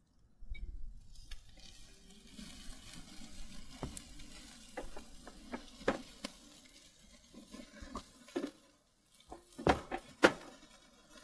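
Marinated chicken sizzling on a charcoal grill, with a string of sharp clicks and knocks as the food is handled at the grill; the two loudest knocks come near the end.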